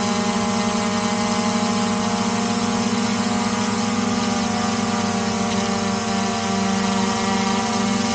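DJI Mavic Air 2 quadcopter hovering close by, its four propellers giving a steady hum with a strong low tone and a stack of higher tones over a hiss.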